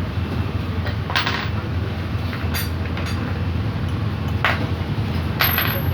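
Metal engine parts clinking as they are handled, about four separate clinks, the last with a brief high ring, over a steady low hum.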